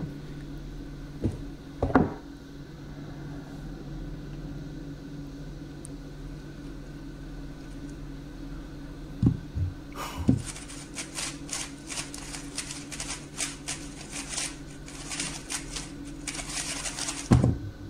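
3x3 speedcube being turned very fast: a dense, rapid clatter of plastic clicks for about seven seconds, starting about ten seconds in and ending in a loud thump as the hands come down on the timer to stop it. Before that, only a low room hum with a few knocks while the cube is inspected.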